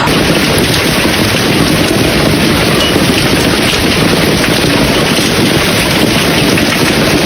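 Hail pelting down in a dense, steady clatter of countless small impacts, with wind on the microphone.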